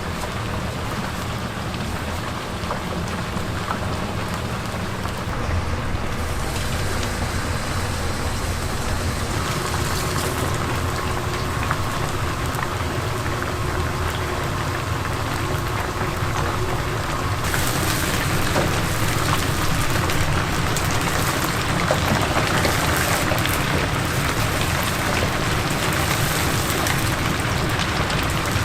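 Chicken pieces sizzling and crackling in deep-frying oil, a steady dense crackle over a low hum, growing louder and brighter a little past halfway.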